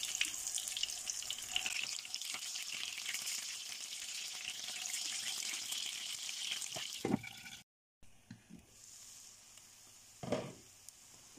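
Curd-cheese pancakes sizzling in hot vegetable oil in a frying pan while they are turned over with a spatula. The sizzle stops abruptly about two-thirds of the way through and comes back much fainter, with a couple of knocks.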